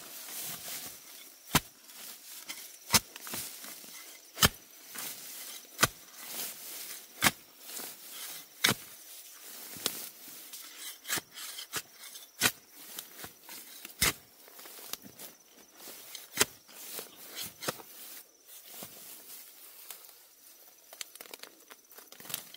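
A run of sharp knocks or strikes, about one every second and a half, with quieter rustling between them.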